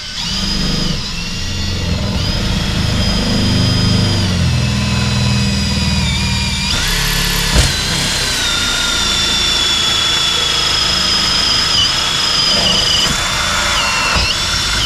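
Cordless drill boring a hole through a caravan's composite (compressed-foam) panel door. The motor whine climbs as the drill spins up, then runs on, stepping down and back up in pitch a few times as the load changes, with a single sharp knock about halfway through.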